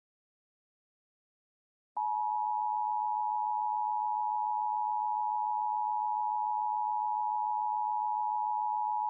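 Emergency Alert System attention tone: after about two seconds of silence, a steady, unbroken high tone comes in suddenly and holds, signalling that a warning message follows.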